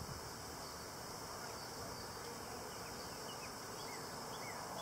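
Honeybees buzzing steadily around an open hive as a frame is lifted out. Faint short chirps repeat high above the hum in the second half.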